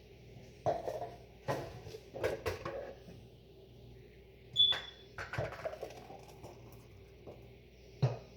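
Kitchen handling sounds: a scattered series of knocks and clatters of utensils and dishes, with one short ringing clink about four and a half seconds in, the loudest of them.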